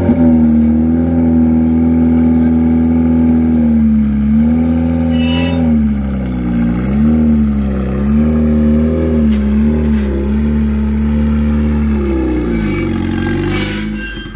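Mid-mounted turbocharged Honda four-cylinder (H2B swap) in a CRX running under throttle as the car is driven up onto a car trailer. The pitch holds steady at first, then dips and rises again and again as the throttle is worked, and falls away near the end.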